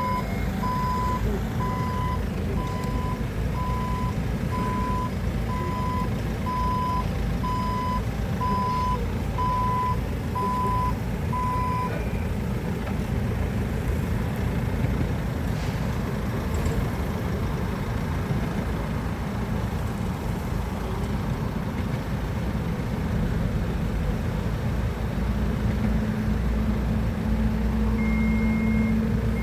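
Forklift's reversing alarm beeping about once a second over its running engine; the beeping stops after about twelve seconds. The engine keeps running, and near the end its note rises and steadies.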